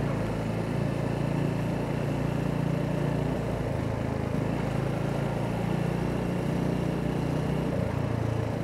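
Mutt Mongrel 250's single-cylinder engine running steadily at low speed while riding, its note stepping slightly about three and a half seconds in and again near six seconds.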